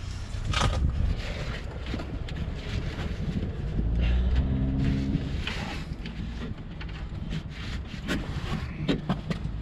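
Wind rumbling on the microphone, with scattered small clicks and rustles from hands working the headlight bulb into its holder. A steady low hum comes in about four seconds in and lasts a second or two.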